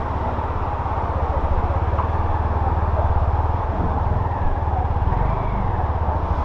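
Hero Xpulse 200's single-cylinder engine running steadily at low revs, its exhaust a low, even pulse.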